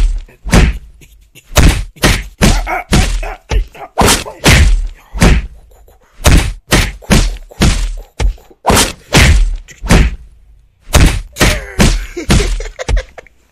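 Rapid, irregular thumps and knocks right at a phone's microphone, about two or three a second with a brief pause near the end: handling noise as the phone is bumped and brushed while a hand and a kitten play-fight around it.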